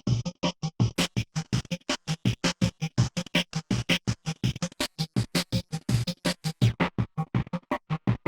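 Make Noise QPAS filter on a Eurorack modular synthesizer playing a fast, even sequence of short plucky notes, about six or seven a second, with several resonant peaks ringing through each note. The tone turns brighter about a second in.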